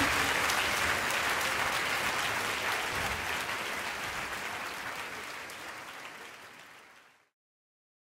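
Audience applauding, dense clapping that fades steadily and stops about seven seconds in.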